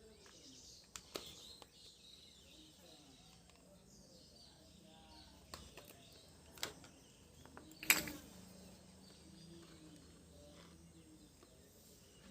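A few sharp clicks or taps over faint background noise, the loudest about eight seconds in.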